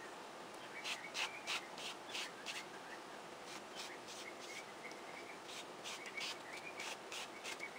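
A plastic credit card scraping gesso across a stencil laid on paper: quick repeated strokes in three bouts with short pauses between.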